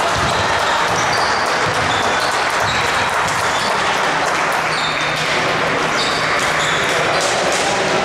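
Basketball game sound in an indoor hall: a ball bouncing on the court amid steady crowd noise, with scattered short high squeaks.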